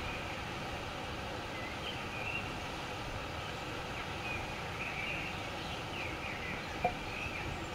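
Steady outdoor background noise with faint, scattered bird chirps, and one brief click about seven seconds in.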